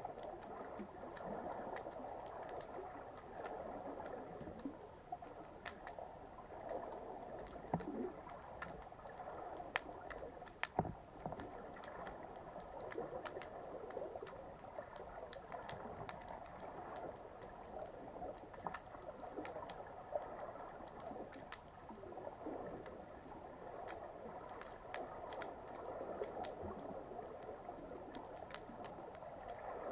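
Underwater ambience: a steady watery rush and gurgle with many faint scattered clicks, and a few louder knocks about eight and eleven seconds in.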